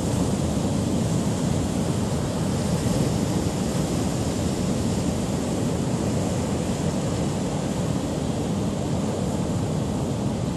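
Pacific storm surf breaking on rocks and shore: a steady low rumble of waves, with wind noise on the microphone.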